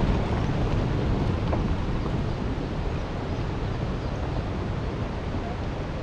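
SUV driving past on a gravel road, its engine and tyres fading slowly as it moves off, with wind on the microphone.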